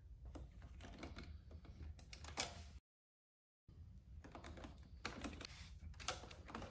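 Small plastic clicks and light rattling from gloved hands handling parts in an inkjet printer's ink cartridge bay, broken by a moment of dead silence about three seconds in.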